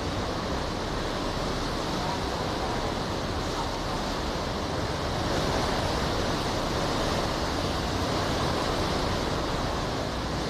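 Category 4 hurricane winds blowing, a loud, steady rush of wind that swells a little about halfway, heard from inside a building where windows have shattered.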